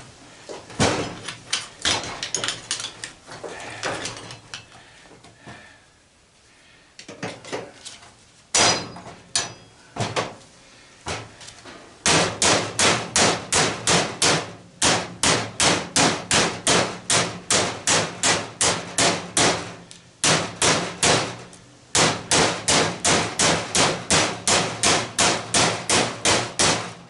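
Hammer blows on the fan's metal motor, knocking out a part that its bearing is still holding in. Scattered strikes at first, then a steady run of about two or three blows a second from about halfway, with one short pause.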